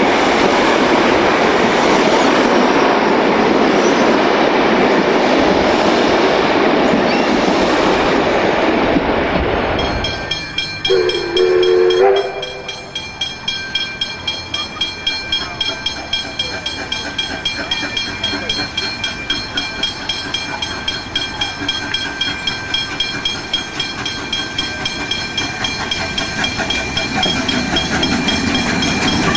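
Heritage carriages running behind a K class 2-8-0 steam locomotive, heard from on board as a steady loud rumble. Then a short whistle blast about eleven seconds in, followed by a level-crossing bell ringing evenly at about two to three strokes a second while the locomotive approaches the crossing, its running noise rising near the end.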